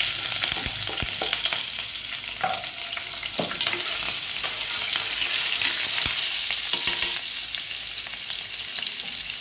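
Green chillies and curry leaves sizzling in hot oil with cumin and mustard seeds in a pan, the tempering for a kadhi, stirred with a steel spoon. It is a steady sizzle with scattered sharp clicks.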